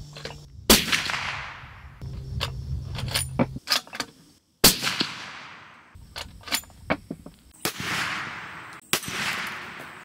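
Suppressed .300 Winchester Magnum bolt-action rifle (Ruger M77 Hawkeye Hunter) firing shots a few seconds apart, each a sharp crack trailed by a fading echo of about a second. Small metallic clicks come between the shots, as the bolt is worked.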